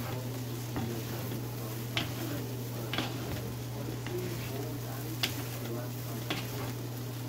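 Wooden spatula stirring and tossing fried rice in a wok, with a light sizzle and about five sharp knocks of the spatula against the pan, over a steady low hum.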